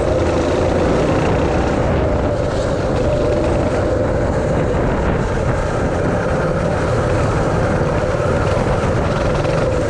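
Three Tillotson 212 single-cylinder four-stroke engines of a mini bike running at speed on a dirt trail, holding a steady pitch. Wind rushes over the microphone.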